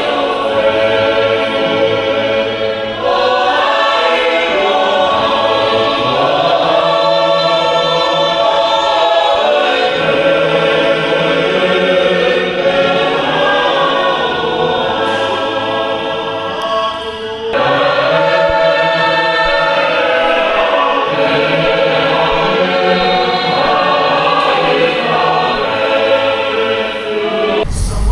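A choir singing a hymn in many-part harmony, with sustained chords moving in phrases and fresh phrases beginning about 3 and 17 seconds in.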